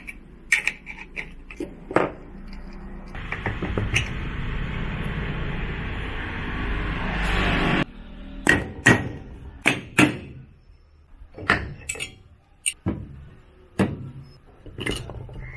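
Spanners and metal parts of an open-well submersible pump clinking and knocking as the pump is taken apart: sharp knocks of tools on the cast-iron flanges and stainless-steel housing. For a few seconds in the middle a steady noise grows louder and then stops suddenly.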